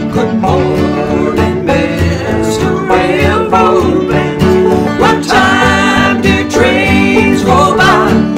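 Acoustic bluegrass band music: strummed acoustic guitar and picked banjo, with a man singing.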